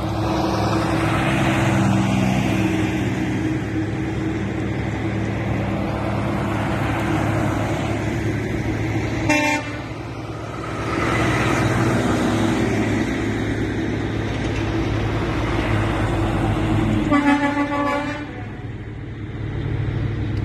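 Heavy trucks driving past with their engines running. A short horn toot comes about nine seconds in, and a longer horn blast of about a second comes near seventeen seconds.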